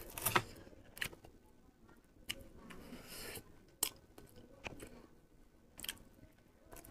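Faint clicks and rustling as a Bangla banana is pulled from its bunch and peeled by hand, with a soft tearing rustle about three seconds in. Near the end it is bitten into and chewed.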